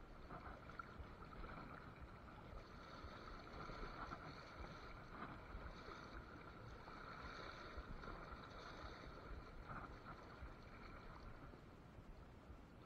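River water flowing past, a faint steady rush.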